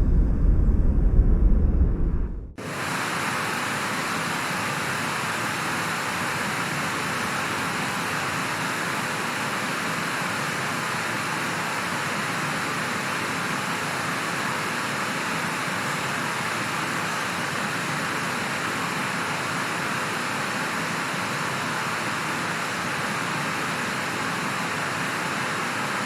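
A deep, loud rumble cuts off abruptly about two and a half seconds in and gives way to a steady, even hiss of rushing air.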